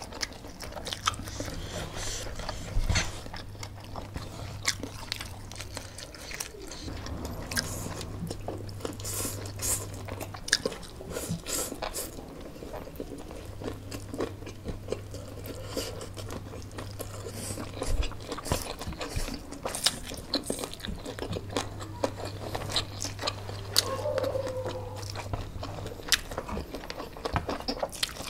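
Close-up mouth sounds of two people eating spicy noodles and fried dim sum: steady wet chewing, slurping of noodles and small crunches, with a few louder bites.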